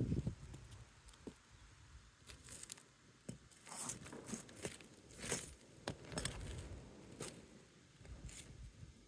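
Asphalt roof shingle being worked loose: an irregular series of short scraping, crackling and tearing sounds with sharp clicks, as the sealed shingle is pulled apart from the one above.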